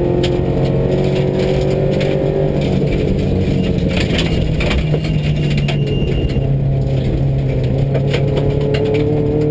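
Subaru rally car's flat-four engine pulling hard on a gravel stage, heard from inside the cabin: the engine note climbs at the start, settles lower in the middle and climbs again near the end. Gravel pinging off the underside and interior rattles click throughout.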